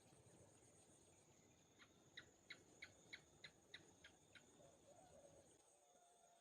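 Quiet outdoor background with a run of about nine short, evenly spaced high chirps, roughly three a second, from a small animal's call.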